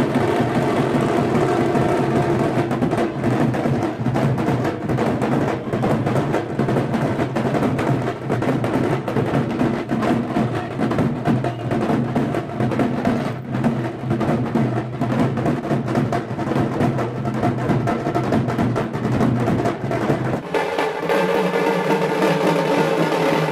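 Music with a busy drum and percussion beat. About twenty seconds in, the bass drops out and the music changes to a lighter passage.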